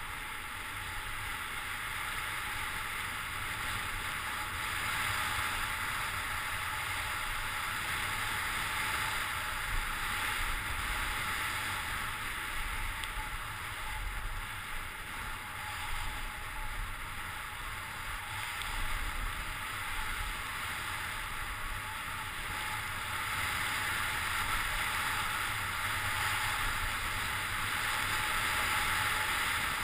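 Steady hiss of sliding fast downhill on a groomed snow trail, swelling and easing slightly with speed, with wind rumbling on the microphone.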